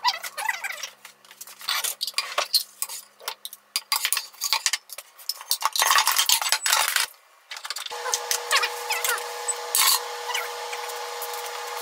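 Kitchen dishware being handled: ceramic bowls and dishes set down on a countertop, with utensils clinking, in a quick run of clicks and knocks. After a short break about two thirds of the way through, a steady hum sits under a few more clicks.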